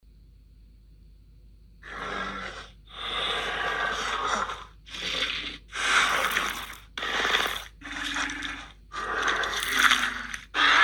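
Film creature sound effects for the D-Rex (Distortus rex) dinosaur: a series of about seven short, noisy breath-like bursts, each under two seconds long with brief gaps between, starting about two seconds in.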